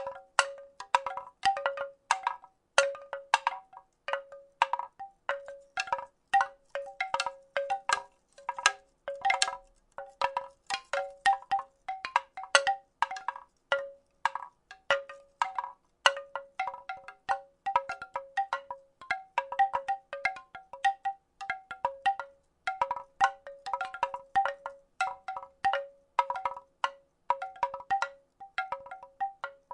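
Wooden rattle shaken continuously: quick, uneven clacks coming in bunches, several a second. Each clack rings briefly on the same two or three hollow notes.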